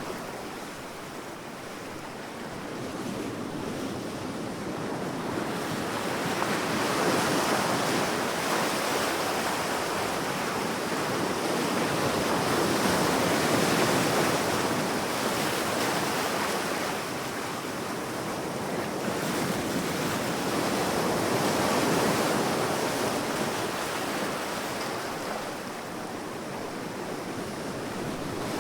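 Sea waves breaking on a sandy beach: a continuous wash of surf that swells and ebbs every several seconds.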